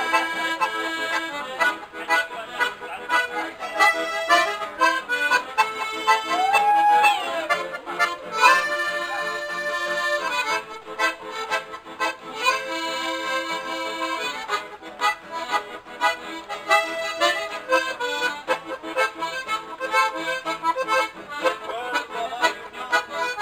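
Two piano accordions playing a tune together, their held chords and melody out front, with an acoustic guitar accompanying.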